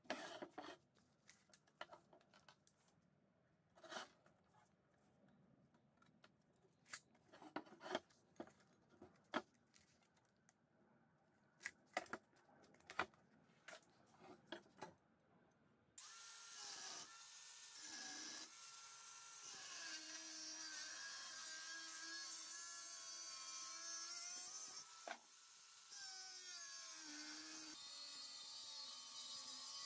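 Sharp knocks and clicks of steel bars being handled on a wooden workbench, then about halfway through a cordless angle grinder starts and cuts into a steel flat bar clamped in a vise. Its motor pitch drops and shifts as the disc bites into the metal.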